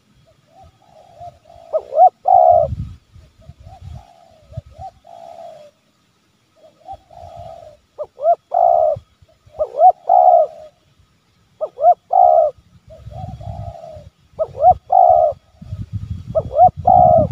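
Spotted dove (tekukur) cooing: a phrase repeated every second or two, each a short rising note followed by a louder cooing note. This is the pressing, challenging call that provokes wild doves to come close.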